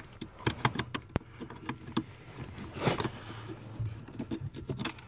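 Hands working under a car's dashboard around the newly fitted brake light switch and its wiring plug: scattered light clicks and rustling, with a sharper click about a second in and a brief rustle near the three-second mark.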